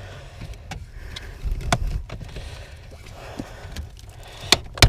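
Scattered plastic clicks and knocks from a car's wiring harness clips and trim being worked loose by hand, over a low handling rumble. A sharp snap comes near the end.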